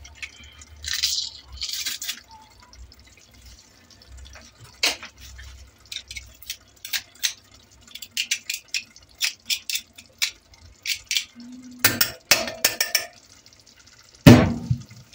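A hand garlic press crushing garlic cloves over a stainless steel pot: a few soft squishing sounds, then a long run of sharp clicks and taps of metal on metal as the press is worked, with a heavier clunk near the end.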